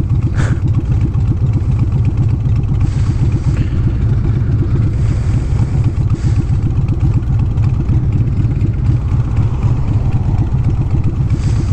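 Motorbike engine running steadily under heavy wind rumble on the microphone, with a few brief hissy gusts.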